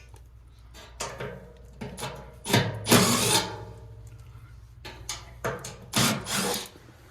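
Cordless drill with a 1/4-inch nut driver running in two short bursts of about a second each, one near the middle and one near the end, among scattered knocks and rattles.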